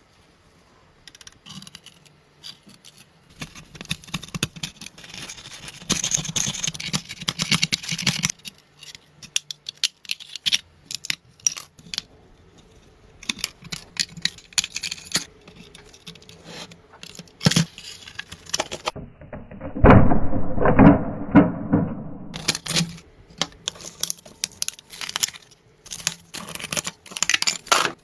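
Hand work on an old toy car: irregular scrapes, clicks and small rattles as it is handled and scraped. A louder, duller stretch of rubbing comes about two-thirds of the way through.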